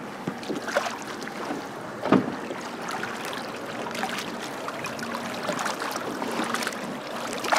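Water splashing and lapping at the side of a skiff as a jack is held in the water by hand and released, kicking and splashing as it swims off. There is one sharper hit about two seconds in.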